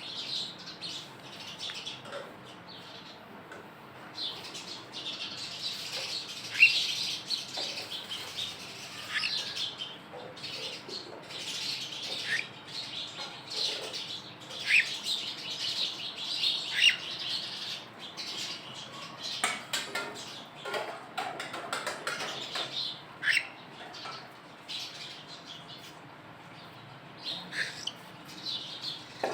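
Pet cockatiels chirping and chattering: many short, high calls, some sliding downward, in busy stretches with quieter gaps between.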